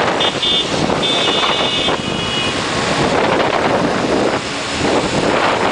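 Column of Simson two-stroke mopeds riding together, engines running under wind noise on the microphone. A high beeping sounds in short pulses, then held for about a second, in the first two and a half seconds.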